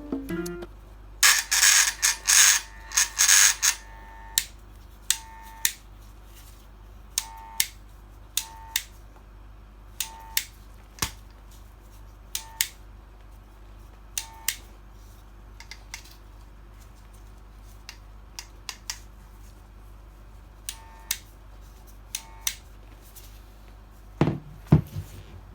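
Cordless power tool run in a few short bursts about a second in, then a long series of short clicks and brief blips, like a trigger being pulled and released, with a heavier clatter near the end.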